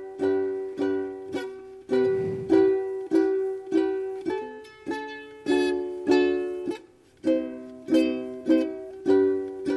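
Steady instrumental strumming of chords on an acoustic string instrument, about two strums a second, each chord ringing and fading before the next.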